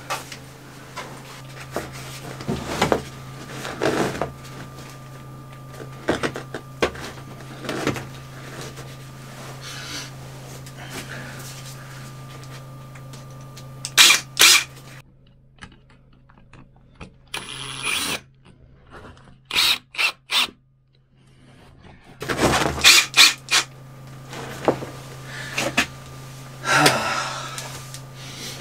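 Work with a cordless drill fastening PVC foil liner to the concrete wall of a water tank: a string of sharp knocks, clicks and clatters, with a quieter stretch about halfway through. A steady low hum runs underneath.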